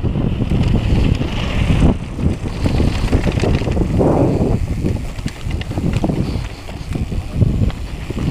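Wind buffeting the microphone of a camera on a mountain biker riding fast down a dirt and gravel track, with tyre noise on the ground and scattered small rattles from the bike.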